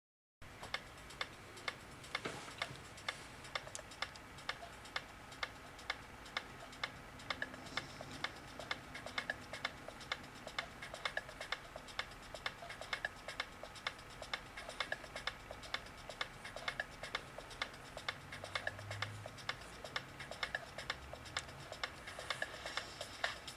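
Regular, even ticking, about two ticks a second, steady throughout.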